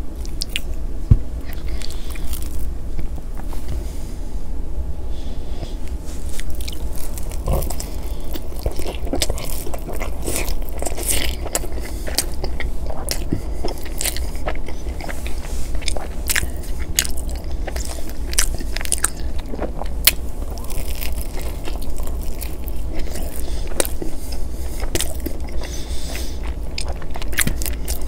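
Close-miked biting and chewing of a pepperoni pizza slice: the crust crunching in a run of many short, crisp clicks.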